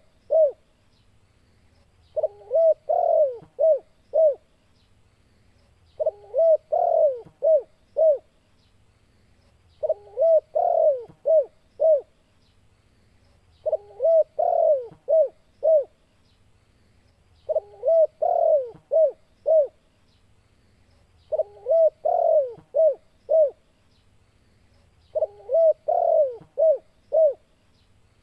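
Spotted dove (tekukur) singing its challenging, territorial song: a phrase of five or six low coos, repeated about every four seconds, seven times over.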